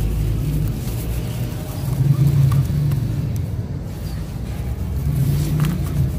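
Hands squishing and crumbling wet grainy sand-cement in water in a plastic basin, heard mostly as a low sloshing rumble that swells and fades, with a few faint gritty clicks.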